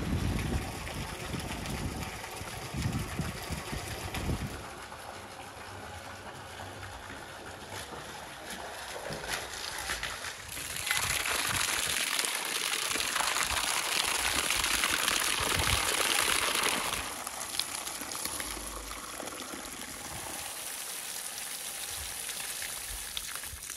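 Water pouring and splashing onto raw lamb testicles in a metal colander as they are rinsed, with a heavier, louder splashing for several seconds in the middle.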